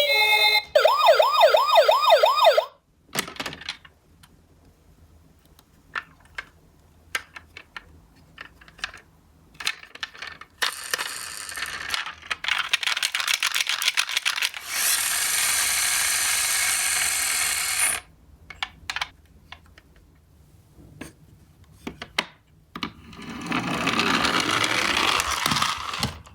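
A toy ambulance's electronic siren wails in a fast wavering pattern for about two seconds, then cuts off. After it come scattered clicks and clattering of small toy cars, with two longer stretches of steady rolling rattle, the second near the end.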